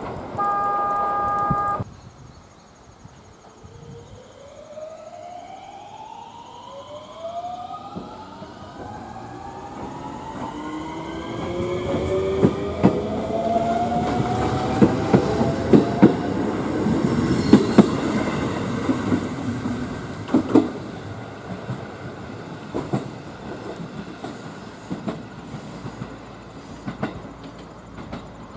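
A brief steady horn blast from a train, then a JR West 223 series electric train pulling out: its motors whine in several tones that rise steadily in pitch as it accelerates, with wheels clacking over rail joints. The sound is loudest as the train passes and fades as it leaves.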